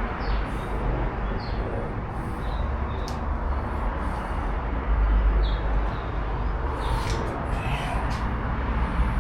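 Steady low rumble and background noise, with a few short high chirps from birds scattered through and a few light knocks.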